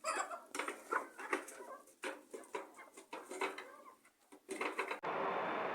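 Faint poultry calls: short, irregular clucks one after another. Near the end they give way to a steady hiss with a faint hum.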